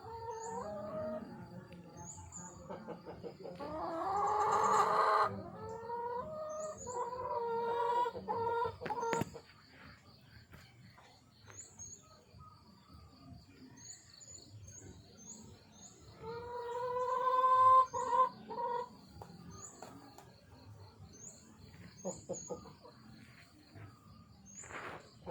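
Roosters crowing twice, about four seconds in and again near seventeen seconds, with shorter clucking calls around the crows. Short high chirps repeat throughout over a steady high insect trill.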